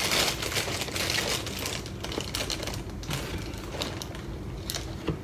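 Crinkling plastic and cardboard packaging being handled and opened, a dense run of small crackles and rustles.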